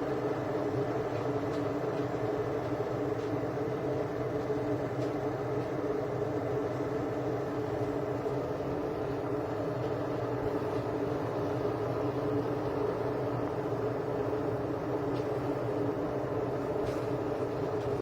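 AZEUS glass electric kettle heating water, a steady rumbling noise of water coming toward the boil.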